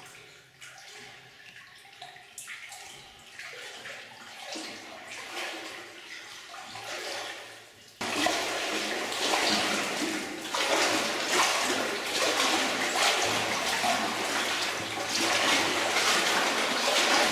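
A person wading through deep water, the water sloshing and splashing around their legs with each stride; faint at first, then much louder and continuous from about eight seconds in.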